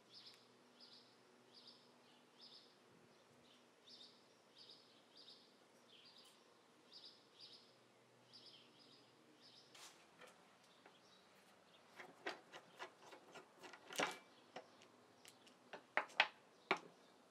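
Faint, high chirps repeat every second or so in the background. In the second half come a series of light clicks and knocks as hand tools are handled on a wooden workbench, the loudest knock about two-thirds of the way in.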